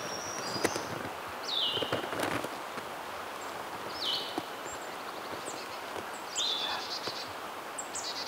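Songbirds calling: a clear whistled note that slurs sharply down and then holds, three times about two and a half seconds apart, with short high chips between. Underneath, a steady rush of wind through the trees and a few light rustles.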